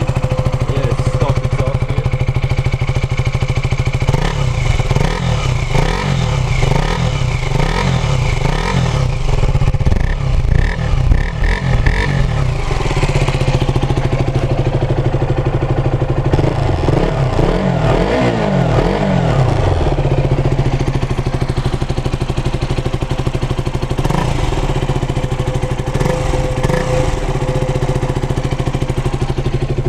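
KTM Duke 200's single-cylinder four-stroke engine running warm at idle, with a series of quick throttle blips in the first half and a bunch of higher revs just past the middle, settling back to a steady idle. Stock underbelly exhaust.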